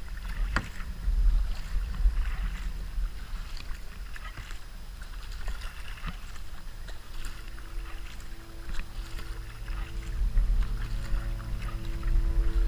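Kayak paddle strokes splashing and dripping in calm river water, over a low rumble of wind on the GoPro's microphone. About two-thirds of the way through, instrumental music with long held chords fades in.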